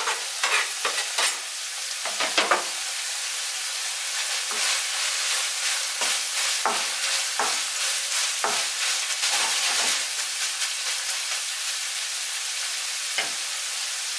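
Minced beef, peppers and spring onions sizzling steadily in a hot frying pan. Chopped spring onions are tipped in from a plastic cutting board, with a few knocks at the start. From about four seconds in, a plastic utensil stirring the pan adds irregular clacks and scrapes.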